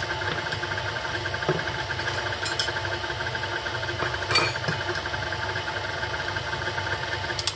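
KitchenAid Artisan stand mixer running steadily, its flat beater churning thick cream cheese and pumpkin batter in the steel bowl, with a fast, even motor hum and a few light clinks.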